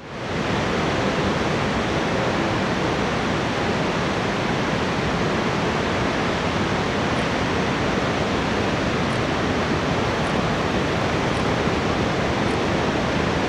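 Steady rushing roar of a large waterfall, fading in over the first half second and then holding even.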